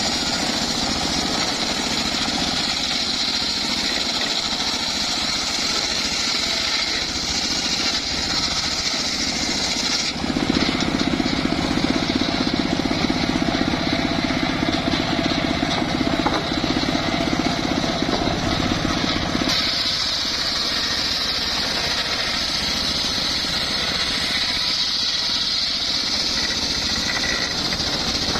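Homemade engine-driven circular sawmill running and ripping logs into boards. The sound turns lower and louder from about ten seconds in until about twenty seconds, then goes back to a higher pitch.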